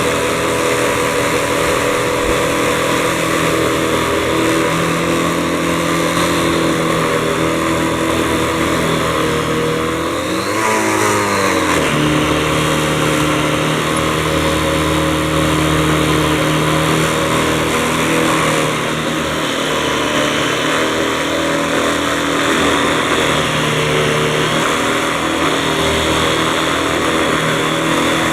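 Vacuum cleaner motor running steadily. About ten seconds in, its pitch briefly sags and then climbs back up.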